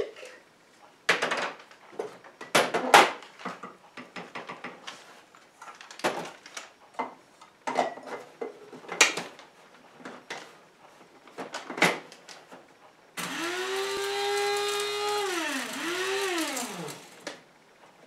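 Scattered clicks and knocks of jars, lids and the grinder cup being handled and filled. About thirteen seconds in, the Hamilton Beach Fresh Grind blade grinder's motor runs with a steady whine, grinding herbs down to smaller pieces. It drops in pitch, revs back up briefly and spins down after about four seconds.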